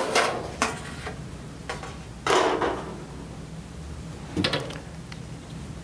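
Metal ballast cover being lifted and slid out of a metal halide parking-lot light fixture's housing: a few light clicks, a longer scraping slide about two seconds in, and a brief rattle near the end.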